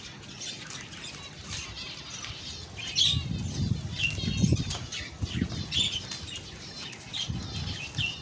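Caged finches chirping busily, with bursts of wing flapping in the cages from about three seconds in and again near the end.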